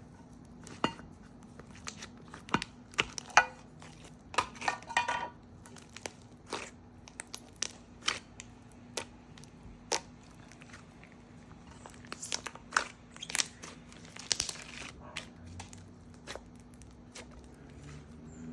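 Hands kneading a thick, glossy slime base with soft DIY clay being mixed in, giving irregular sticky clicks and small air-bubble pops.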